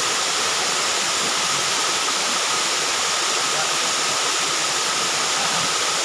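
Steady rush of a heavy-flowing, tiered waterfall: an even, unbroken hiss of falling water.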